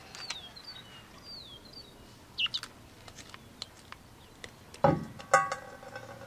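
Small birds chirping in short falling notes, then near the end a heavy thump and a sharp metallic snip or clink as kitchen shears cut through a quail's neck, leaving a ringing tone.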